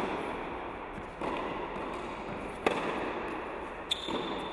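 Tennis ball knocked back and forth in a rally: three sharp racket strikes and court bounces, roughly a second and a half apart, echoing in a large indoor tennis hall over a steady background hum.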